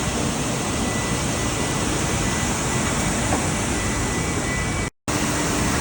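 Industrial box-washing machine running: a steady, loud rushing noise with a faint steady hum, broken by a brief dropout near the end.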